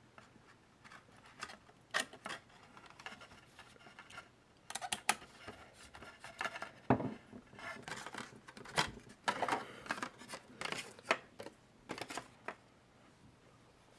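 Hex key working the bolts of a metal bike stem's faceplate while the stem and its cardboard backing card are handled: scattered clicks, small metallic ticks, scrapes and cardboard rustles, busiest in the second half.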